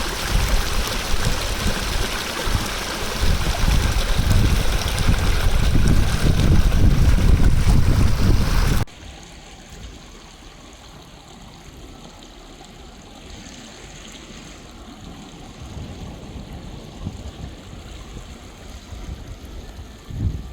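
Loud rushing noise with a deep rumble that cuts off suddenly about nine seconds in, giving way to the quieter, steady trickle of a stream.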